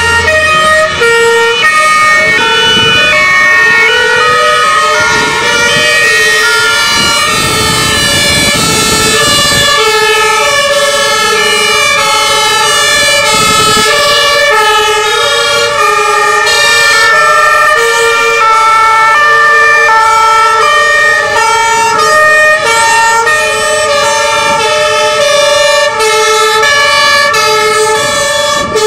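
Two-tone sirens of several fire engines sounding at once, each alternating between two pitches and overlapping out of step with the others, with the trucks' engines rumbling as they drive past.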